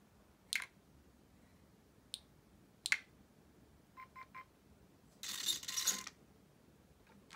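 A few sharp clicks from the on/off switch of a Hobbywing Fusion SE 1200 motor/ESC combo, then three short beeps, the combo's power-up tones saying it is armed, and about a second later a brief whir as the motor and transmission spin with the wheels off the ground.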